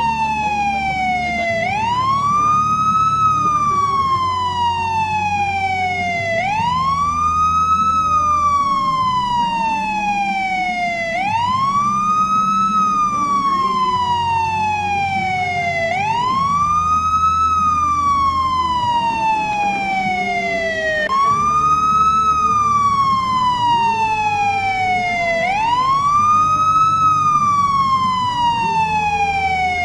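Police siren wailing: each cycle a quick rise in pitch followed by a slow fall, repeating about every five seconds, over a low steady hum.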